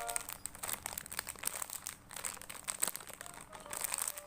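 Crinkling and rustling as a squishy toy is handled close to the microphone, a run of irregular crackles.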